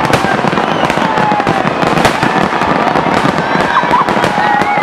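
A fireworks display crackling and popping densely and without a break, many small bangs overlapping, with thin whistle-like tones over the crackle.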